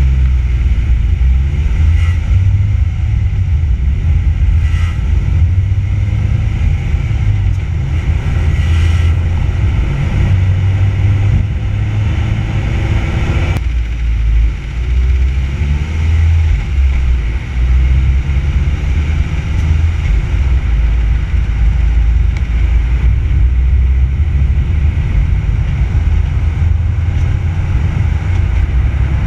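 Heavy low rumble of a car on the move, heard through a GoPro mounted on its front bumper: road and engine noise with wind buffeting the microphone.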